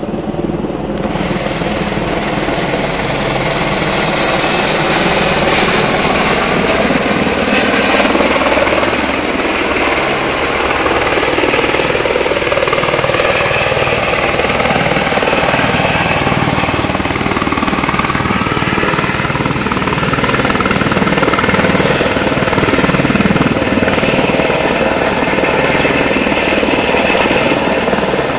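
Firefighting helicopter hovering low over the river while it fills its water bucket, its rotor chopping in a fast, steady beat over the engine's running. The sound is loud and steady throughout.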